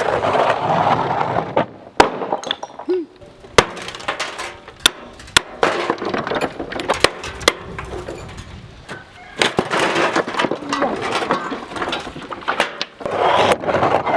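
Hammer striking a brick chimney in irregular sharp blows as bricks and mortar break loose, with stretches of clattering, gritty debris between the blows.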